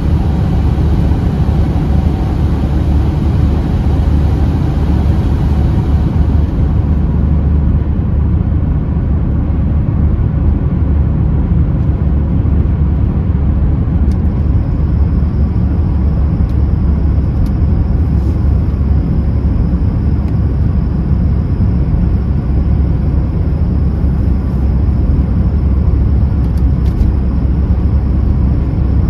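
Steady low rumble of road and engine noise heard inside a moving car's cabin on a snowy road. A higher hiss fades away about a quarter of the way in, and a few faint ticks come later.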